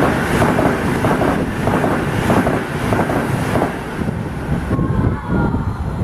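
Train passing close at speed: a loud rush of noise with a quick run of repeated wheel knocks, and wind buffeting the microphone. The sound eases near the end.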